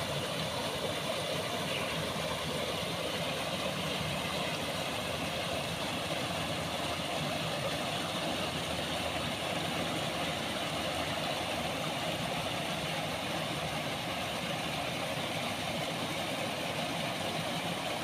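Water pouring over a low concrete weir, a steady rushing with no change.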